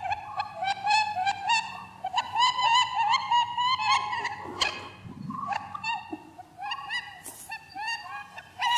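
A rapid series of short, high-pitched squeaking calls, several a second with brief pauses: an animal-squeak sound effect looped as a cat-game soundtrack.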